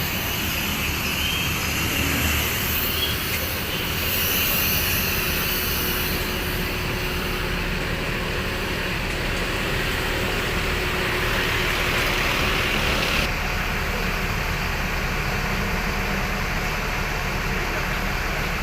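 Steady running noise of a motor vehicle, an even engine and road rumble with a hiss on top that drops away about thirteen seconds in.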